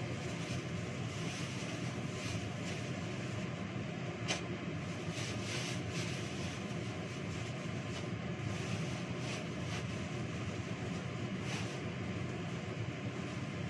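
A steady mechanical whir, with a few brief rustles and clicks as plastic bags are handled.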